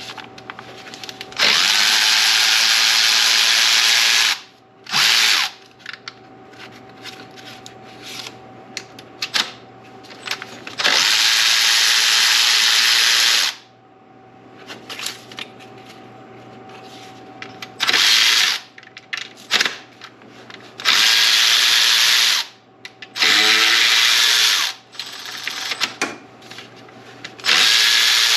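Handheld power tool driving in repeated bursts, about seven runs lasting from half a second to nearly three seconds each, spinning out small 8 mm bolts, with small clicks of handling between the runs.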